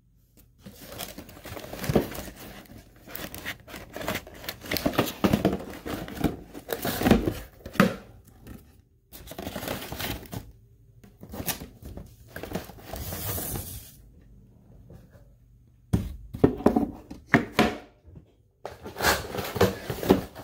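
Paper packing crinkling and rustling in irregular bursts, with some tearing and small knocks, as a toy footlocker is unpacked from its box; the handling pauses briefly about two-thirds of the way through.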